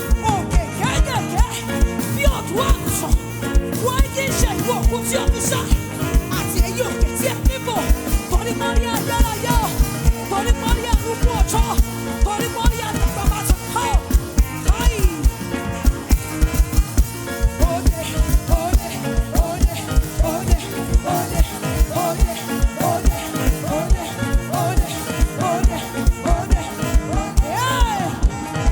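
Live praise band playing an upbeat dance groove with a steady, driving drum beat and a melodic lead line above it.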